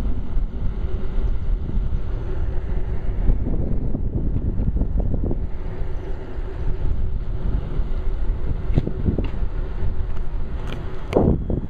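Wind buffeting the microphone of a camera carried on a moving bicycle, a steady low rumble, with a few short knocks near the end.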